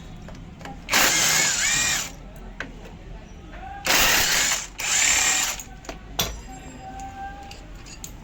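A power tool running in three short bursts of about a second each, the first about a second in and two more close together around four to five seconds in.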